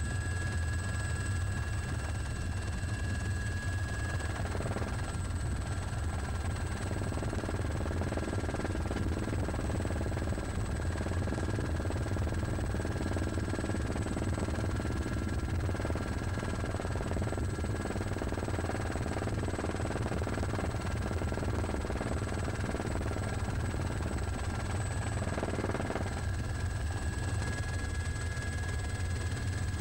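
Helicopter engine and rotor noise heard from inside the aircraft: a steady low drone with a constant high whine. Fainter extra tones come in a few seconds in and drop out near the end.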